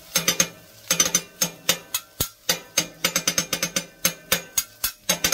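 Metal spatulas striking the steel plate of a flat top griddle in a fast rhythm, several ringing clanks a second with short pauses, as onions are chopped and turned on the hot griddle.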